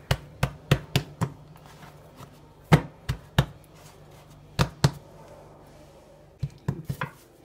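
Hands patting and pressing a block of croissant dough into a square on a floured wooden board: sharp pats and knocks of palm and fingers against the dough and board, in short irregular groups.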